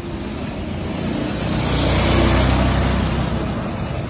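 A road vehicle passing close by, its engine and road noise swelling to a peak about two seconds in and then fading away.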